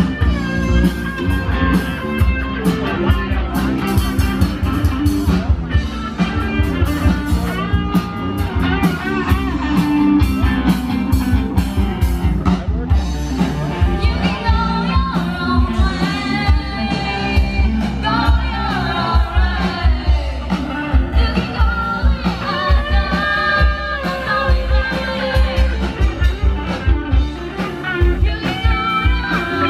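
Rock song with a singer over guitar and drums, with a steady driving beat.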